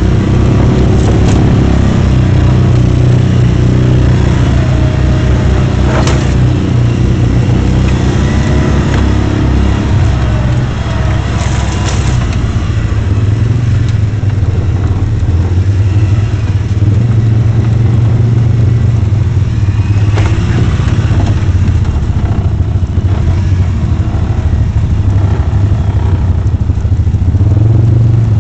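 Side-by-side UTV engine running loud and steady at low trail speed, with a sharp knock about six seconds in as the machine goes over rough ground.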